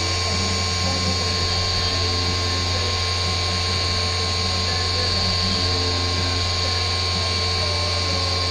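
CNC milling machine spindle running steadily as a small ball end mill contours the inside of a billet engine case under flood coolant: a constant high whine over a low hum and a hiss of cutting noise.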